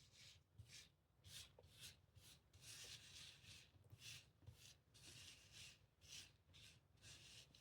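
Faint, repeated sweeping strokes, about two a second, of a brush pushing SS10 hotfix rhinestones across a rhinestone template so that they drop into its holes.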